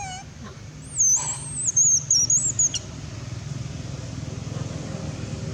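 Baby monkey crying: one long, high-pitched, wavering squeal of about two seconds, starting about a second in, over a low steady hum.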